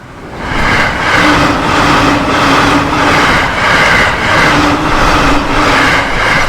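Train passing through a level crossing at speed: a loud rushing rumble that builds in the first half second, with a steady beat about twice a second and a low hum that comes and goes.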